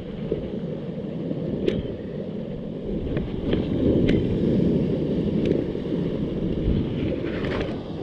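Wind rumbling on the action camera's microphone over surf washing on a rocky shore, louder from about three seconds in. A few faint, sharp clicks are scattered through it.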